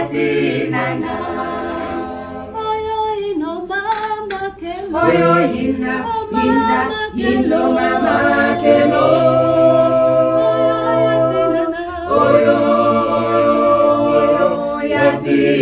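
A small group of voices, mostly women, singing together a cappella in harmony, with long held notes and no instruments. A few brief clicks sound about four seconds in.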